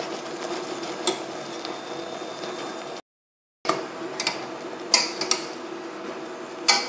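Kitchen clatter: about half a dozen sharp knocks and clicks of utensils and dishes over a steady background. The sound cuts out completely for about half a second around three seconds in.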